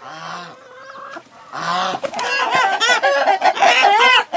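A rooster being grabbed by hand squawks and cackles, with the flock clucking around it; the calls come fast and loud from about a second and a half in. The caught rooster's cackle is the kind a hen gives after laying an egg.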